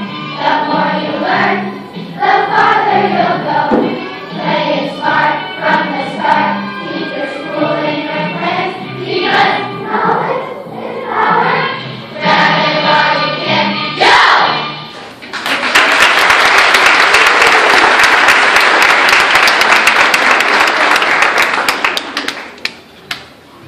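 Children's choir singing, which stops about fifteen seconds in. Loud audience applause follows for about seven seconds and dies away near the end.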